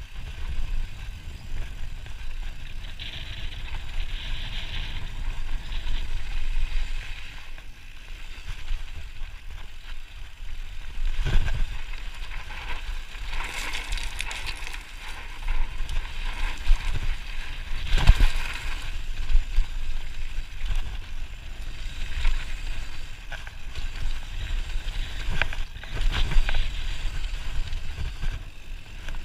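Downhill mountain bike riding fast over a loose dirt and gravel track: a steady crunch of tyres on stones with wind rumble. Two harder knocks from the bike hitting bumps or landing, one a little before the middle and one a little after.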